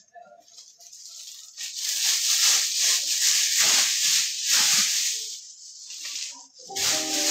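Black plastic bin bag rustling and crinkling as it is handled and shaken open, loudest for a few seconds in the middle. Music starts near the end.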